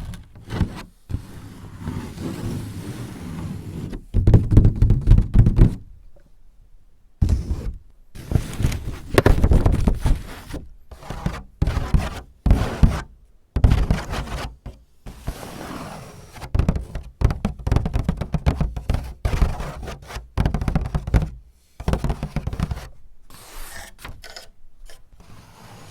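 Close-miked ASMR tapping and scratching: irregular knocks, thunks and scrapes in quick clusters, with short pauses between them and a longer pause about six seconds in.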